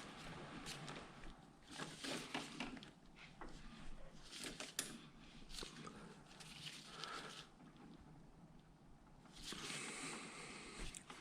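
Faint, scattered clicks, knocks and rustling of hand work on parts, with a longer rustling hiss near the end.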